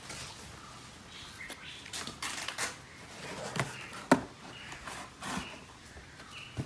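Irregular rustles, clicks and knocks of paper and cardboard packaging being handled as a box is opened, with one sharp knock about four seconds in.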